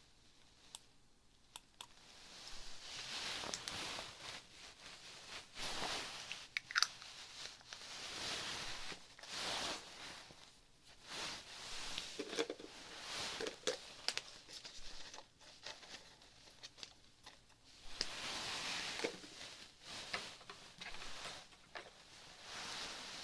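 Soft, close-miked scratching and rustling in short swells of about a second each, with a few crisp clicks.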